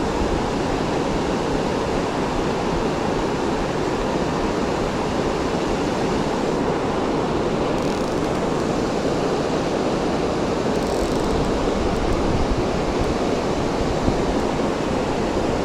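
Steady rushing noise with no distinct events, typical of flowing river water or wind on the microphone; a small brief knock about 14 seconds in.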